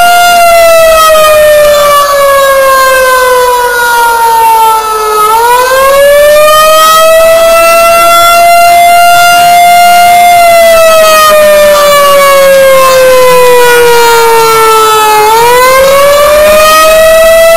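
Outdoor warning siren sounding its monthly test in a wail: one loud tone slides slowly down over about five seconds, climbs back quickly, holds, then slides down and climbs back again near the end.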